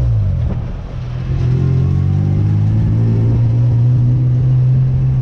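Honda J35 V6 engine in an off-road sand rail buggy, running while the buggy is driven. The engine note drops for about a second near the start, then picks up again and holds steady.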